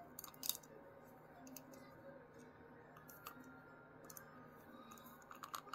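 Scattered light clicks and taps from a small plastic keychain slot machine toy being handled in the fingers, with a few quick clicks together near the end.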